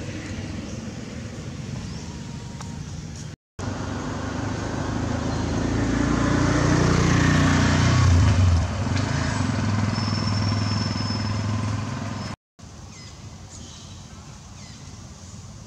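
Outdoor ambience with a motor vehicle passing: its engine hum swells over several seconds, peaks about eight seconds in and fades away. The sound drops out briefly twice.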